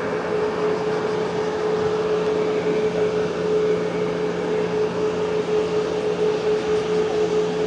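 Airbus A340-600's Rolls-Royce Trent 500 jet engines running at low taxi power: a steady rushing noise with a constant mid-pitched whine and a lower hum, unchanging throughout.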